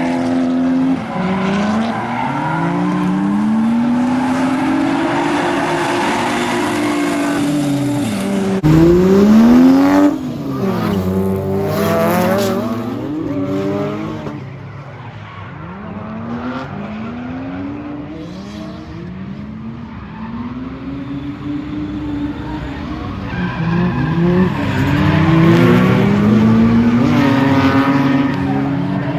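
Lexus SC300's turbocharged 1JZ-GTE straight-six revving up and falling back over and over while drifting, with tyre squeal. The sound changes abruptly about a third of the way through.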